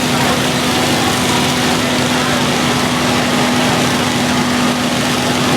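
Lawn mower engines running steadily, holding one constant hum over a dense noisy background.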